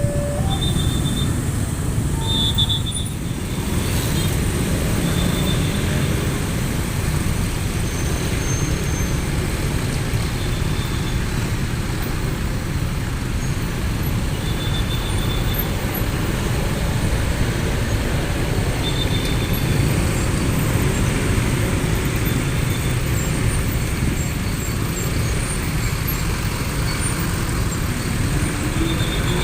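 Steady road traffic noise: heavy vehicles running past with a continuous low rumble, and a few short, faint high peeps now and then.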